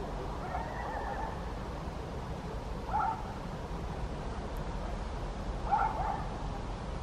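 Short animal calls: a faint one near the start, then two short calls about three seconds apart, the last the loudest. A steady low rumble runs underneath.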